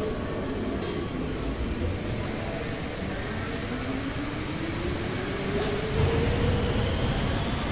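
Schindler roped hydraulic elevator running, a steady mechanical rumble with a whine that rises in pitch from about three and a half seconds in, and a few light clicks.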